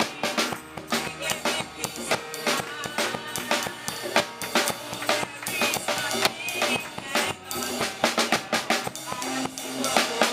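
Live gospel praise band playing, with a busy drum kit of kick, snare and rimshots over pitched instruments.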